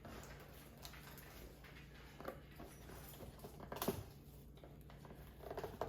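Faint handling noises: soft rustling and a few light clicks or knocks, the sharpest just before four seconds in.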